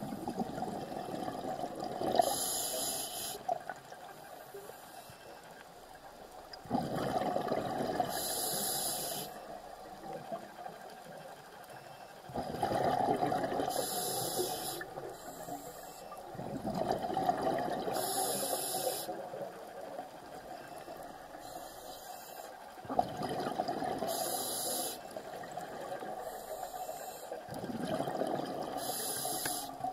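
A scuba diver breathing through a regulator underwater: six breath cycles about every five seconds, each a surge of rushing, bubbling exhaust with a short high hiss at its end.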